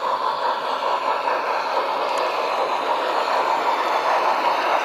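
Double-headed Broadway Limited HO scale model steam locomotives (Rio Grande and Pennsylvania Railroad) running, with a steady thin, tinny running sound and wheel noise on the rails. The sound grows slightly louder as they pass close by.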